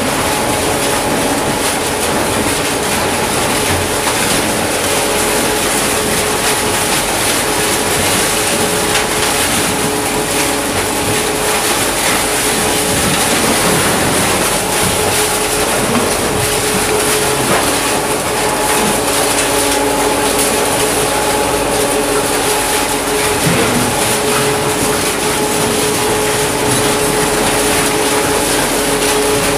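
Twin-shaft metal shredder tearing through scrap steel roofing and profile iron: a continuous loud crunching and clattering of sheet metal over a steady machine hum.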